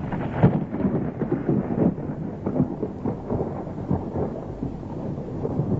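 A continuous low rumble that swells suddenly about half a second in and then carries on steadily.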